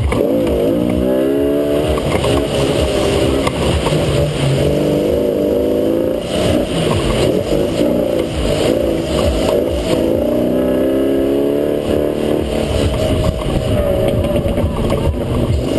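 Toyota FJ40 off-road racer's engine revving hard under load through mud, its pitch climbing and dropping several times as the throttle is worked, heard from inside the cockpit.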